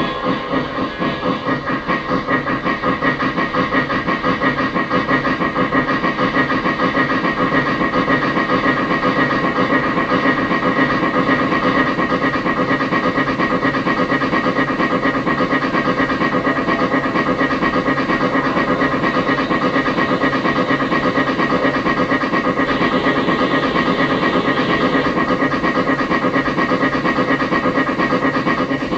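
Steam locomotive running sounds from a Lionel Legacy RailSounds O-scale Polar Express (Berkshire-type steam engine): a rhythmic chuffing that quickens over the first few seconds and then holds a steady fast beat.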